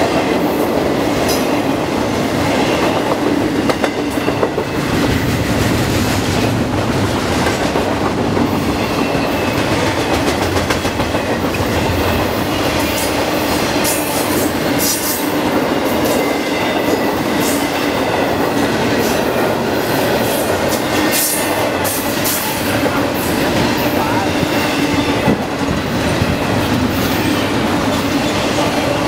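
Train rolling past close by in a long, steady pass, its cars clattering with repeated clicks of wheels over the rails.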